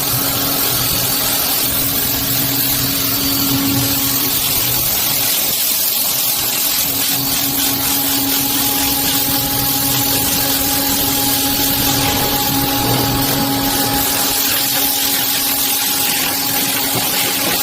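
Pressure washer running steadily: a motor-driven pump humming under the hiss of a high-pressure water spray.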